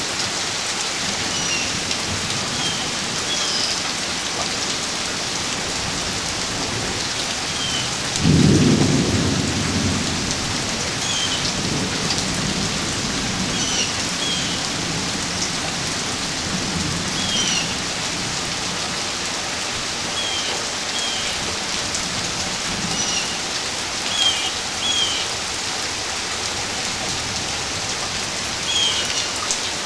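Steady rain falling, with a sudden peal of thunder about eight seconds in that rumbles low and fades away over several seconds.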